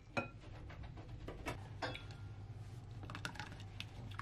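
Light, irregular clicks and taps of a whisk against a ceramic mixing bowl as batter is mixed.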